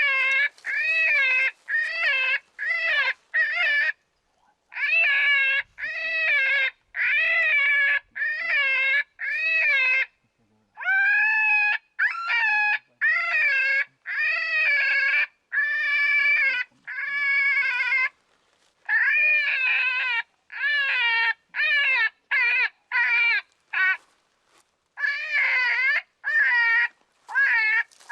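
Predator call sounding a long series of wailing distress cries, about one a second, each bending up and down in pitch, with short breaks between runs of cries, used to call in a bear.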